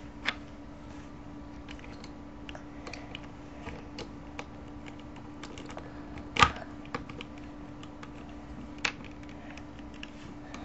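Plastic Rubik's Cube pieces clicking and clacking irregularly as they are handled and slid into place on the cube, with one sharper knock about six seconds in.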